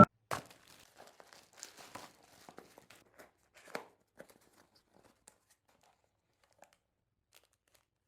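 Faint handling noise: scattered small clicks and crinkles, loudest about a third of a second in and again near four seconds, then near silence for the second half.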